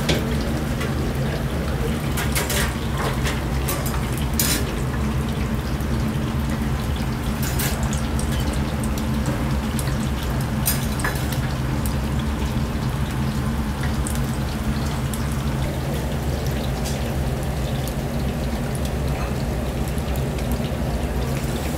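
Sakura shrimp kakiage deep-frying in a vat of hot oil: a steady sizzle and bubbling over a steady low hum, with a few sharp clicks of metal utensils against the ring molds.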